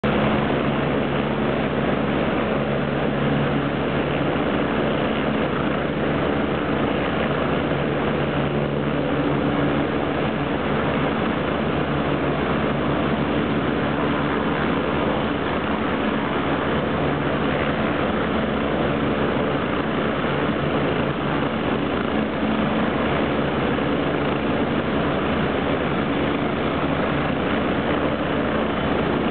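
MBB BO105S helicopter's twin turboshaft engines and rotors running steadily on the ground, a constant rushing whine over a low hum.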